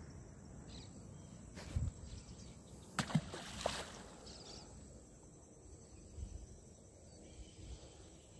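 A mandubí released back into the creek: a short splash about three seconds in, with a couple of smaller knocks around it, over faint outdoor background.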